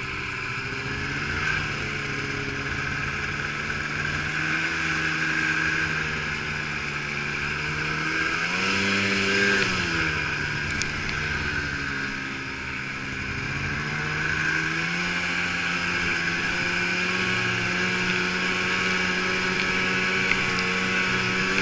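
Two-stroke mountain snowmobile riding through deep powder, its engine note rising and falling with the throttle: pitch climbs about halfway through, dips briefly, then holds higher near the end. A steady higher whine runs above the engine note.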